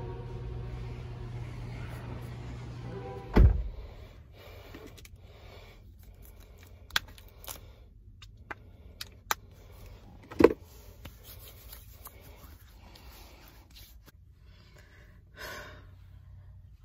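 A steady low hum for about three seconds, cut off by a heavy low thump. Then, inside a parked car, scattered clicks, knocks and rustles of handling, with a second sharp knock about ten seconds in.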